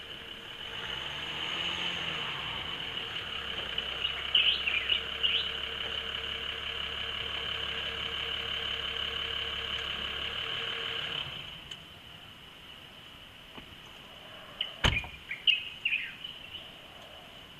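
Jeep Grand Cherokee SUV's engine running as the vehicle drives up and stops, then cutting out about eleven seconds in. A few seconds later a car door shuts with one sharp thump, and birds chirp now and then.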